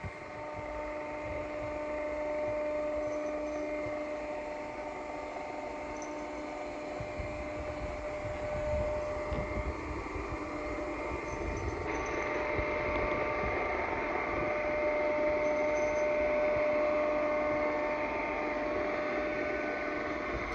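Vacuum cleaner running steadily, its motor and fan giving a constant whine of several held tones over an airy rush, with the tone shifting slightly about halfway through.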